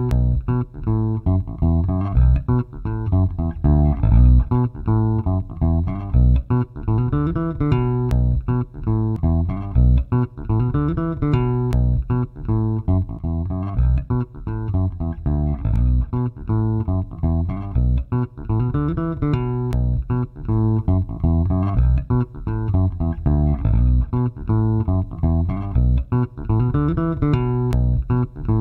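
Funk electric bass guitar loop at 120 bpm playing back on repeat, plucked notes with nothing else in the mix. It is heard through an EQ and a compressor.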